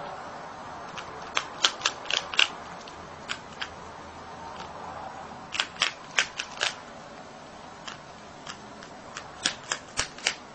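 A marmot crunching on a piece of hard food held in its forepaws: sharp crunching bites come in three quick bursts of several bites each, about a second in, near the middle, and near the end.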